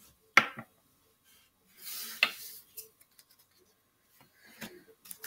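Tarot cards being handled and laid out on a table: a sharp tap about half a second in, a short rustle with a tap around two seconds in, and a couple of softer taps near the end.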